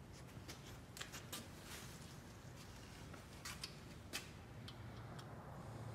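Light, uneven metal clicks and taps, a dozen or so, from a dial indicator and its stand being handled and set on the deck of an engine block.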